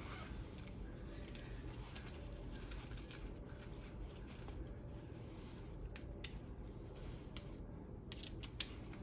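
Scattered light metallic clicks and clinks of hand tools and parts being handled during a turbo inlet install, over a low steady hum. There is a sharper click about six seconds in and a quick run of clicks near the end.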